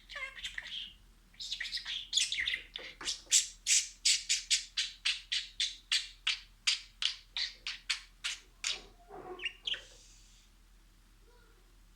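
Budgerigar chirping and squawking in a fast run of short, sharp, high calls, about three a second, which stop a little after the middle.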